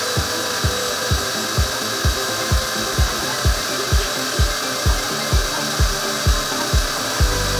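Shop vacuum running steadily, a hiss with a steady whine in it, as its hose sucks dirt out of a Humvee's floor. Underneath, background music with a steady bass beat of about two beats a second.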